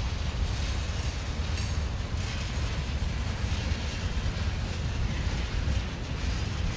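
Freight cars rolling slowly past on the rails: tank cars and gondolas make a steady low rumble with light wheel clicks. A brief high-pitched squeal comes about a second and a half in.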